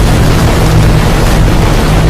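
Loud, heavily distorted, steady wall of noise with a low hum underneath. It is a scary sound effect stacked in many pitch-shifted copies, 'demon' style.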